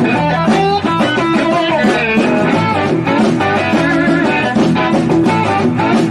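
Electric guitar playing a blues lick over a backing track with a bass line, some notes gliding in pitch.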